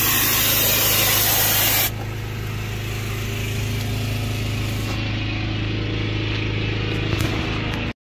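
Compressed air hissing through a dryer-vent cleaning whip hose, cutting off about two seconds in. A steady engine hum runs underneath and stops abruptly near the end.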